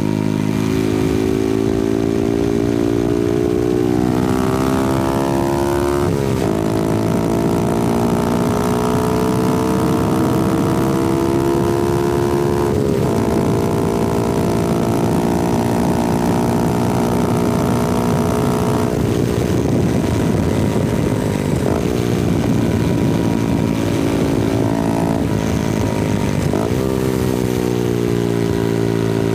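Honda Grom's 125cc single-cylinder four-stroke engine and exhaust running under way. The pitch climbs with the throttle and breaks off sharply several times as gears change, then falls and jumps back up again near the end.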